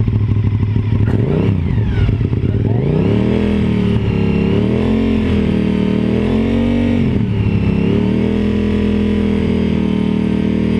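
Motorcycle engine running at idle, then revved up and down several times and held at a higher steady speed in the last few seconds. The revving is what drives the stator's AC output up from about 28 to over 80 volts.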